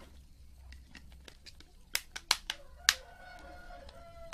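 A quick run of about five sharp clicks within a second as a smartphone is handled, then a short steady hum and one more loud click at the end.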